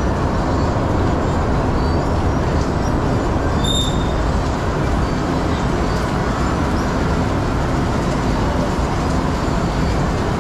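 Steady loud rushing noise of a river rapids raft ride heard from aboard the raft, with a short high tone about four seconds in.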